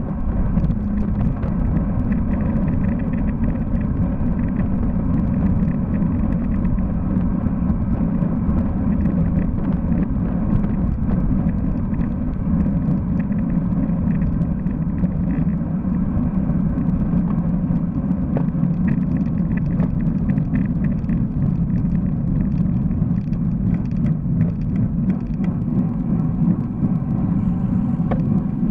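Steady wind and road rumble on the microphone of a Cycliq camera mounted on a road bicycle riding at speed, with faint ticks scattered throughout.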